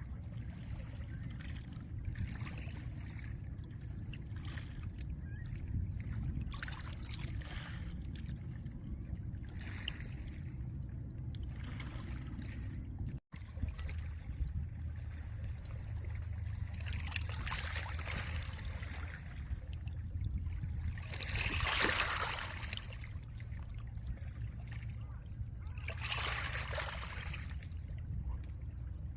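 Small lake waves washing in over a pebble shore, each wash swelling and fading over a second or two, over a steady low rumble; the strongest washes come about two-thirds of the way through. The sound drops out for an instant near the middle.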